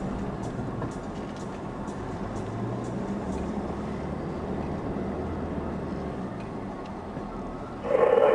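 Ford Ranger's engine running steadily at crawling speed on soft sand, heard from inside the cab, with faint ticks and rattles. Just before the end comes a short, loud burst of sound.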